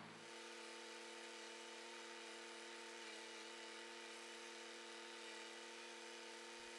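Tractor engine running steadily under load while pulling a tine cultivator, heard faintly as a steady hum of several even tones.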